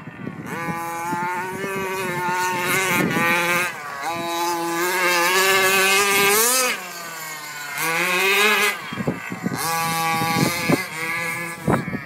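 FTX Punisher RC buggy's small nitro engine, running on a newly fitted carburettor, revving up and down as the buggy is driven. Its pitch rises and falls with the throttle, dropping back to a lower, quieter note a few times.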